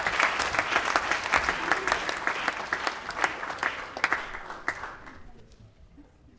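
Audience applauding, the clapping thinning out after about four seconds and dying away before the end.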